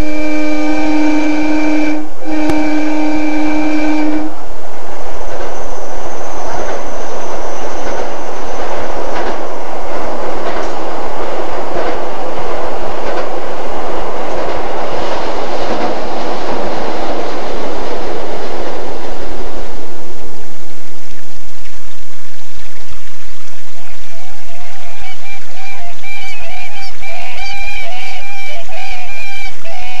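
Abukuma Express electric train sounding its horn in two long blasts with a short break about two seconds in, then pulling away and running, with wheel and motor noise swelling and fading out. Near the end a wavering pitched sound comes in. All of it is heard as playback of a cassette tape recording.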